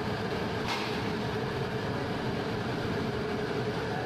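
Steady roar of large gas burners heating big aluminium cooking pots, with a faint steady hum and one short metallic clatter a little under a second in.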